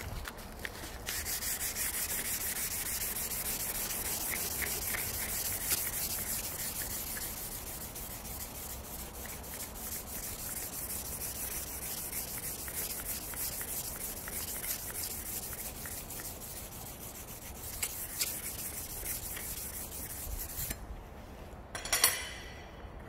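A hand-held abrasive block rubbed back and forth along the flat of a steel kitchen-knife blade clamped in a vise, a continuous scratchy sanding sound: hand-finishing the blade surface. It stops about 21 seconds in, and shortly after comes a single sharp metallic clink that rings briefly.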